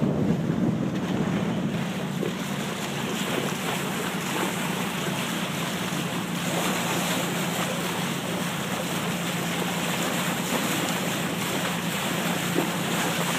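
A boat under way: its engine hums steadily beneath the rush and splash of the bow wave cutting through the water, with wind buffeting the microphone.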